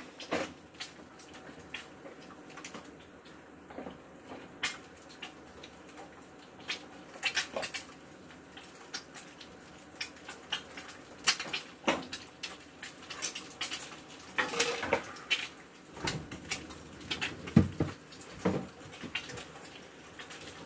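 A spatula scraping and tapping in a frying pan, stirring cooked rice into stir-fried vegetables for bibimbap, in irregular clicks and short scrapes.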